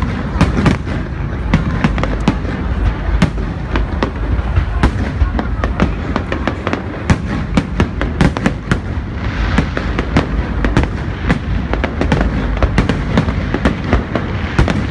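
Aerial fireworks display: a dense, unbroken barrage of shell bursts, several sharp bangs a second over a steady low rumble.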